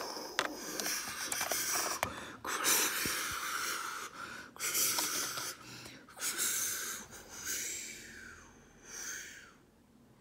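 A person's mouth-made hissing whooshes standing in for an MRI magnet quench venting its helium: a run of about six breathy bursts, each a second or so long, fading out near the end.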